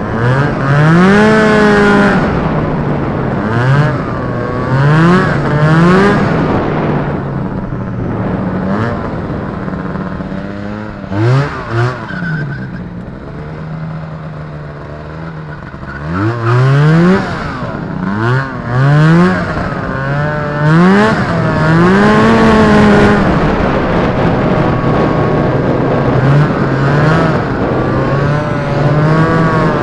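Two-stroke Rotax 503 engine of an Indy Trail snowmobile under way, its pitch rising and falling over and over as the throttle is opened and eased. About halfway through it drops to a lower, quieter running for a few seconds, then revs up again several times and settles to a steady pitch near the end.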